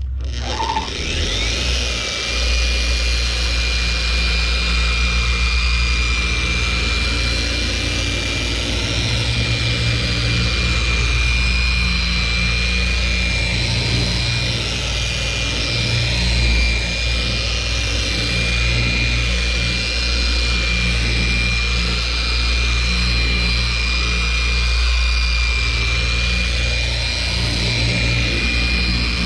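Corded electric car polisher with a foam cutting pad, spinning up at the start with a rising whine, then running steadily against the paint while compounding. This is the cutting stage of a two-stage paint correction.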